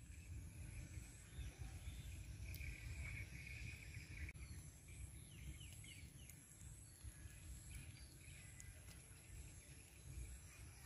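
Faint ambience of low wind rumble with a bird calling: a thin high trill for a few seconds, then a few quick chirps around the middle.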